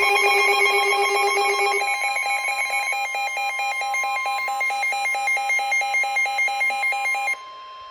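Emergency Alert System attention tone: a loud two-tone electronic alarm pulsing about four times a second. A lower third tone drops out about two seconds in. Just after seven seconds it cuts to a much quieter single steady tone, marking the start of a severe thunderstorm warning.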